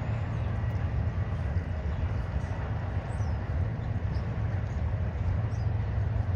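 Double-stack intermodal freight train rolling past at a steady speed: a continuous low rumble of wheels on rail.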